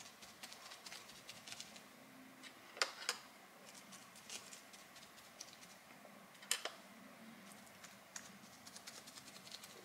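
Faint, irregular tapping and small clicks of a foam sponge dauber being dabbed onto plaster rockwork, with a few sharper clicks about three seconds in and again past six seconds.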